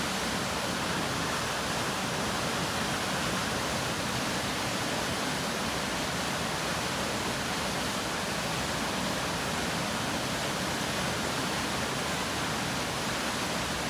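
A waterfall of about 25 feet rushing steadily: an even, unbroken hiss of falling water.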